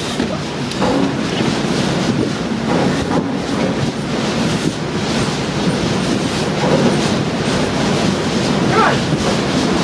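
Strong gale wind blowing across an open ship's deck and buffeting the microphone: a loud, continuous rushing noise.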